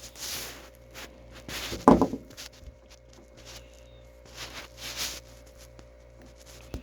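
Hands working a fuel fitting and wire at a plastic fuel tank: light rubbing, rustling and small clicks, with one louder short bump about two seconds in, over a faint steady hum.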